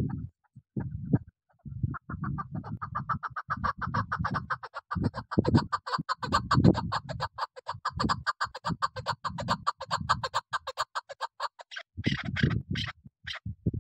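Chukar partridge calling: a long, fast, even run of clucking 'chuk' notes starting about two seconds in, ending with a few harsher notes. Low muffled bursts come and go underneath.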